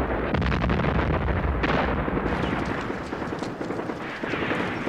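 Battle sounds: a dense clatter of gunfire over a continuous heavy rumble of explosions, with a fresh burst about a second and a half in.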